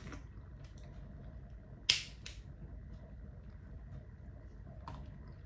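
Two sharp clicks close together about two seconds in, over a low steady hum, with a faint tick near the end.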